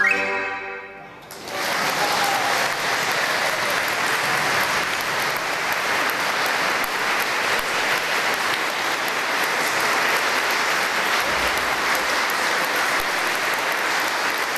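The last note of a folk band of pan flute, violins, recorder and accordion ends right at the start. After a short pause an audience applauds, steady and sustained.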